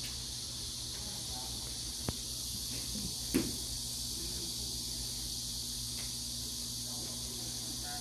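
A steady high-pitched insect chorus shrills without a break. A sharp click comes about two seconds in, and a louder knock about a second and a half later.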